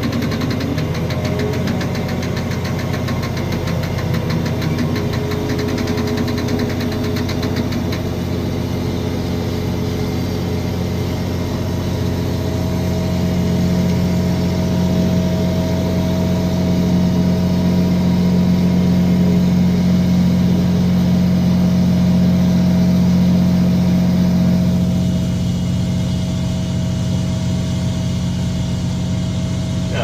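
Manitex 50128 boom truck crane's engine running steadily as heard from inside the operator's cab while the crane swings. It grows louder for about ten seconds midway, then settles back.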